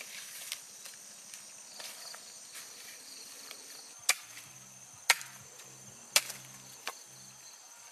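A machete chopping into a wooden stick held upright on the ground: four sharp chops about a second apart, starting about four seconds in, after soft rustling of dry grass and twigs. Crickets chirp steadily throughout.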